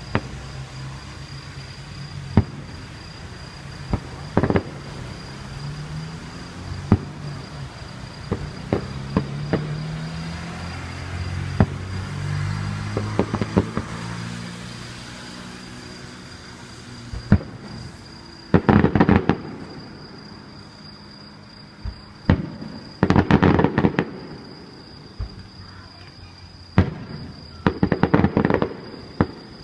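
Aerial fireworks going off: single sharp bangs at first, then three bursts of rapid crackling about 19, 23 and 28 seconds in.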